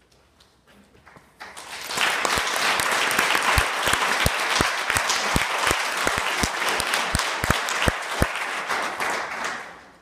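Audience applauding. The applause swells in about a second and a half in and dies away near the end, with single claps from someone close by standing out through the middle.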